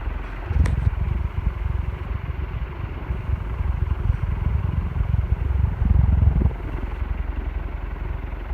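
SMC 36-inch industrial ceiling fan running on high, its steeply pitched blades moving air with a steady rush. A low rumble swells and dips unevenly, loudest about half a second in and around six seconds in.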